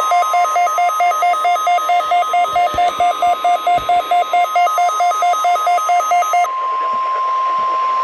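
NOAA Weather Radio's 1050 Hz warning alarm tone, a steady loud tone sounding for the weekly test. Over it, a lower-pitched beep repeats about five times a second and stops about six and a half seconds in.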